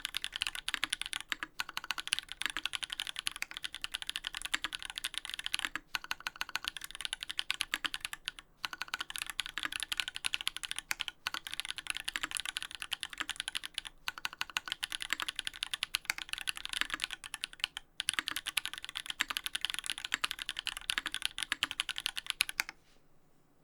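Fast continuous typing on a Duck Orion V3 custom mechanical keyboard with lubed Holy Panda tactile switches on an FR4 plate, dense keystroke clacks with short pauses every few seconds. The typing stops shortly before the end.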